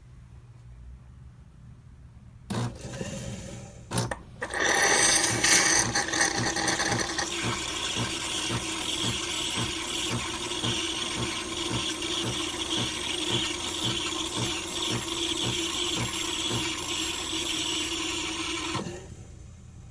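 Nespresso Lattissima Pro espresso machine's pump running as it dispenses: a short start-up and a click, then a loud steady hum with a regular pulsing beneath for about 14 seconds, stopping abruptly near the end.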